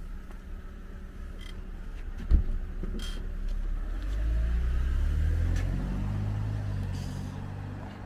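BMW 5 Series car running and then pulling away, its engine note rising and getting louder for a few seconds before easing off. A single sharp thump comes about two seconds in.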